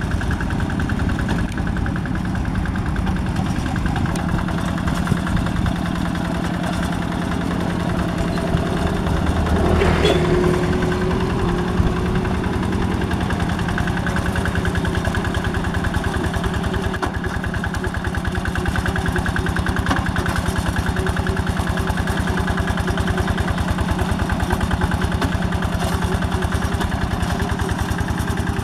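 Yanmar two-wheel walking tractor's single-cylinder diesel engine running steadily under load as it drives its cage wheels through paddy mud. There is a brief rise in level about ten seconds in.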